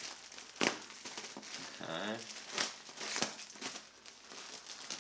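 Plastic mailer bag crinkling and rustling as it is pulled and torn open by hand, with a few sharp crackles of the plastic.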